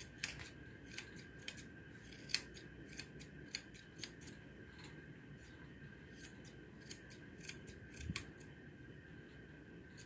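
Grooming shears snipping through a standard poodle's coat: short clicks about every half second, with a pause of about two seconds near the middle.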